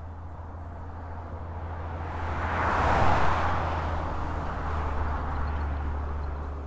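Motorway traffic recorded at the roadside: a vehicle passing by, its tyre and engine noise swelling to a peak about three seconds in and then fading, over a steady low hum.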